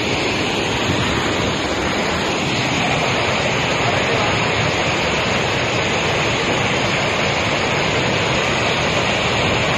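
Muddy floodwater rushing in a fast, heavy torrent and pouring over a road edge: a steady, loud noise of water.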